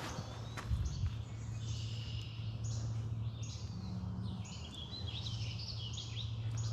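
Songbirds calling in wet forest, a series of short high calls repeated over several seconds, over a steady low hum.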